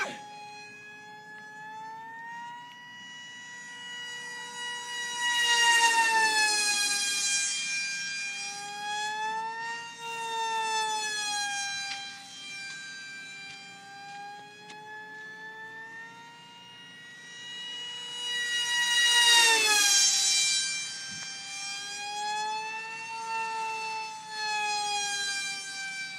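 Electric RiteWing Deamon flying wing in flight, its Scorpion brushless motor on a 3S battery whining through the propeller, the pitch rising and falling with throttle. It grows loud and its pitch drops steeply as it makes two close passes, about six and nineteen seconds in.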